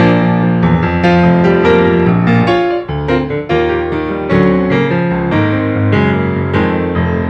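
Background music: a piano playing a melody with chords.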